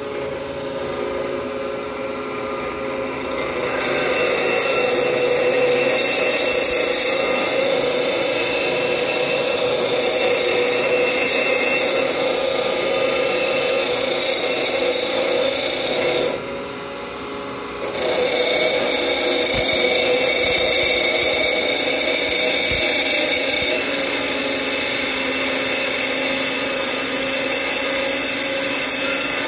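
Queen City 12-inch pedestal grinder with a 36-grit wheel grinding a steel rebar bar: a harsh grinding noise over the steady hum of the running wheel. The grinding starts about three seconds in, breaks off for a second or so a little past halfway, then carries on.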